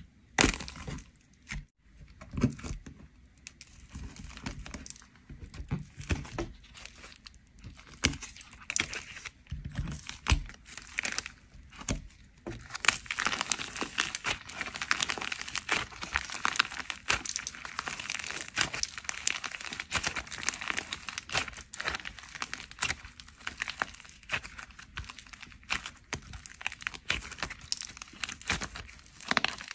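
Dried plaster clay shells cracking and crunching as fingers press and crush them, with separate sharp cracks at first. From about halfway through it becomes a dense, continuous crinkling as the broken shell pieces are squeezed and kneaded into soft clay.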